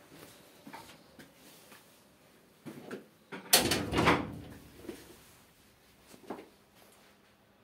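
Indoor knocks and clicks, with one louder clattering scrape about halfway through that lasts under a second.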